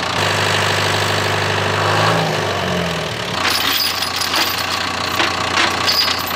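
John Deere 650K crawler dozer's diesel engine running steadily, its note shifting about two seconds in. From about halfway on, a steel chain clinks and clanks as it is worked by hand against the dozer blade.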